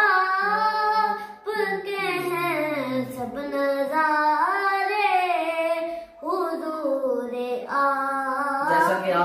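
A young male voice sings a naat, an Urdu devotional verse. The phrases are long and drawn out, with the pitch gliding and ornamented, and there are short breath breaks about a second and a half in and about six seconds in.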